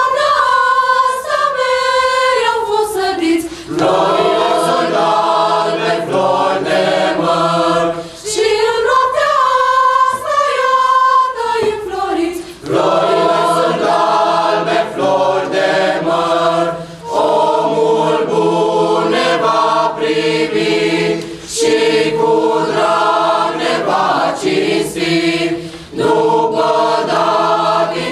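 Mixed youth choir singing a Romanian Christmas carol (colind) a cappella, in phrases of a few seconds with short breaths between them.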